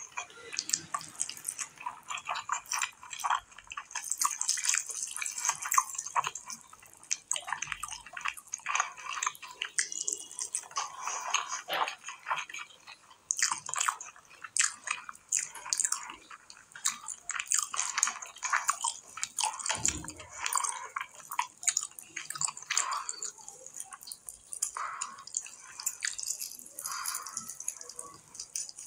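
Close-up wet eating sounds: fingers squishing and mixing rice with mutton curry, and chewing, as a dense run of irregular wet clicks and smacks.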